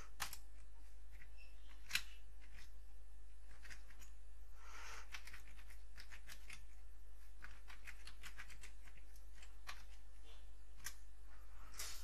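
Computer keyboard typing: irregular key clicks over a steady low hum.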